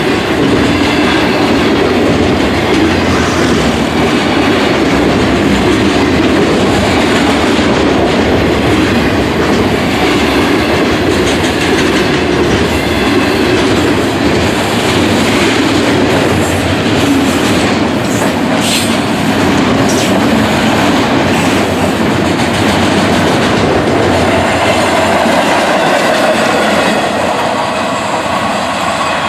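Freight train's autorack cars rolling past at close range: a steady, loud rumble with wheels clattering over the rail joints, easing a little near the end.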